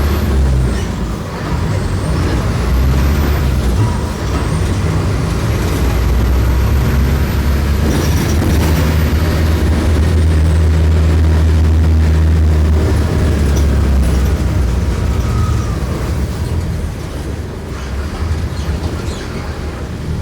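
Mercedes-Benz OM-904LA diesel engine of an OF-1418 bus running under load, loudest around the middle and easing off over the last few seconds. A thin high whistle rises and falls with it during the first half.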